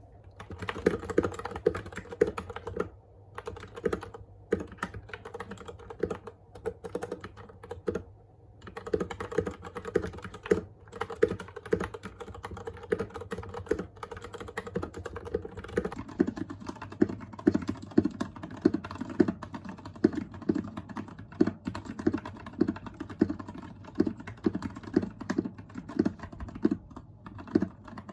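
Royal Kludge RK61 mechanical keyboard with Gateron Yellow linear switches being typed on: a quick, uneven run of key clacks, broken by a few short pauses in the first eight seconds.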